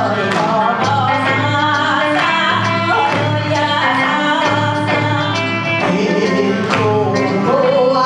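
Kawachi ondo folk song: a woman singing through a microphone and PA over band accompaniment, with a low bass note that keeps coming back at an even pace.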